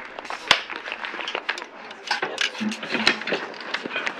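Scattered hand claps from a small group, irregular and sharp, with voices chattering in between.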